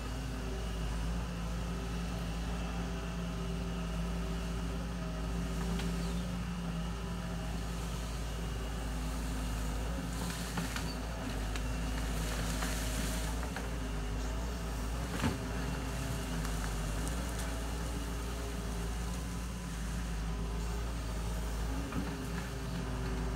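Diesel engine of a Doosan wheeled excavator running steadily under load as the machine digs, with a stretch of rougher noise around the middle and a single sharp knock a little later.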